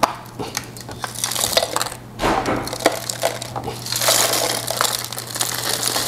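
Roborock S6 Pure's plastic dust bin being knocked and shaken against the rim of a stainless steel trash can: a string of sharp clicks and knocks, with a rustling hiss as the debris pours out twice. A steady low hum runs underneath.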